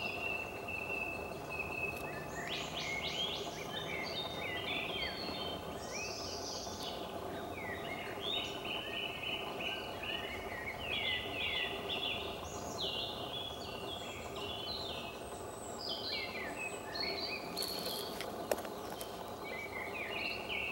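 Several songbirds singing and chirping in quick, overlapping phrases over a steady background hum, with one sharp click near the end.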